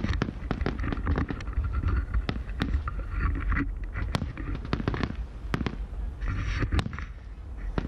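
Aerial firework shells bursting in an irregular string of sharp bangs, sometimes several a second.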